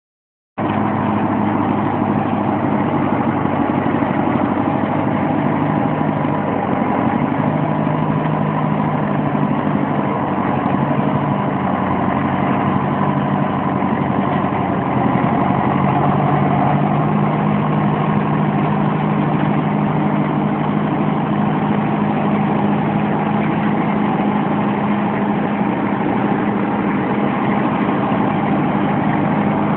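Farm tractor's diesel engine running steadily at idle, with an even low drone that doesn't rise or fall.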